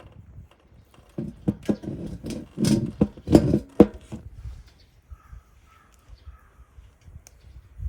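Firewood knocking and clattering as pieces of wood are handled and set into a Solo Stove Titan fire pit, a quick run of sharp knocks over about three seconds, then only a few light ticks.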